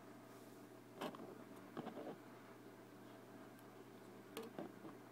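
Plastic Lego pieces clicking and knocking as they are handled and pressed together: a click about a second in, a couple near two seconds, and two more past four seconds, over a faint steady hum.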